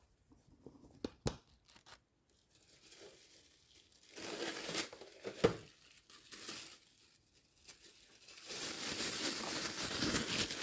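Thin plastic food bag crinkling and rustling as it is pulled out and opened by hand. A few light clicks come first, and the crinkling grows louder and denser from about eight seconds in.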